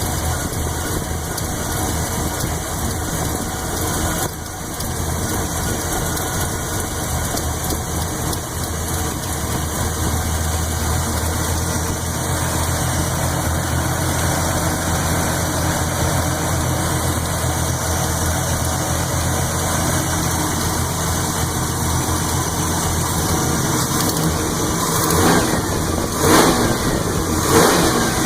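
Chevrolet 400 small-block V8 with a Lunati Voodoo cam idling with a lifter tick from the even-side bank, a tick the owner finds louder the lower the idle. The throttle is blipped two or three times near the end.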